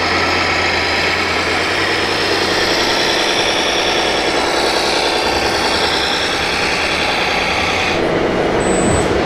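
Radio-controlled model John Deere 9530 tractor driving, a steady mechanical running noise with a low hum in the first couple of seconds. About eight seconds in the sound changes, and short high beeps begin.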